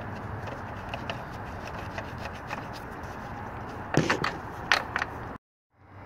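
A few sharp metal clicks, the loudest two about four and almost five seconds in, over a steady background hum, as a truck door's hinge bolts are fitted by hand. The sound cuts out for a moment near the end.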